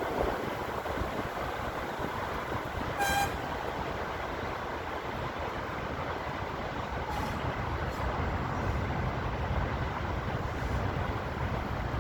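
Strong wind buffeting the microphone: a steady rushing with a low rumble that grows heavier in the second half. About three seconds in, one brief high toot cuts through.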